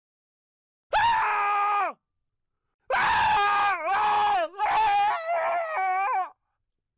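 Recorded scream sound effect: a person screams once for about a second, with the pitch falling away at the end. After a short gap comes a longer scream of about three and a half seconds that wavers up and down in pitch and breaks off briefly twice.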